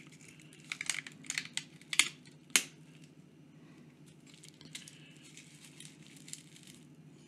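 Hands unwrapping cardboard and plastic packing from a pen: crinkling and crackling handling noises, a quick run of sharp crackles in the first few seconds with the loudest about two and a half seconds in, then fainter crinkling. A low steady hum sits underneath.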